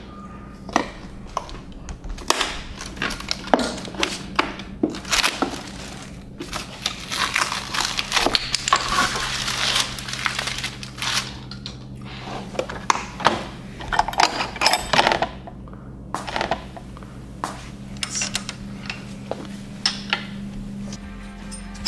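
Hand unpacking of machine accessories: repeated clicks, clunks and clinks of metal tools and parts being handled and set down, with a stretch of rustling paper and plastic wrapping about seven to eleven seconds in. A steady low hum runs underneath.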